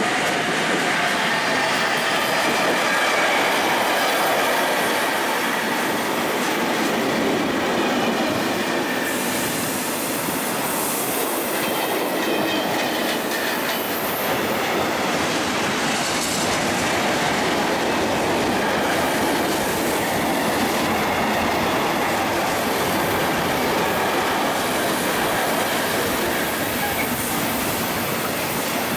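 Electric-hauled intermodal freight train passing close by: the locomotive and then a long run of loaded wagons, with wheels rumbling and clacking over the rails in a steady, loud wash of noise. A faint high wheel squeal comes in at times.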